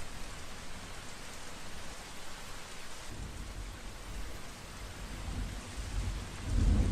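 Steady rain falling, with a low rumble of thunder swelling in near the end.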